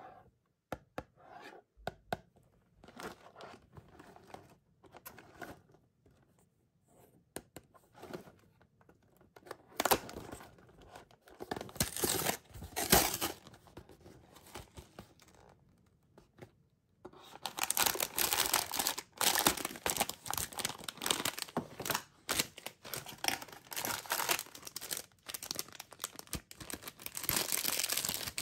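Cardboard snack box handled with light taps, then torn open in a few ragged rips, followed by a thin plastic wrapper crinkled and torn open continuously through the second half.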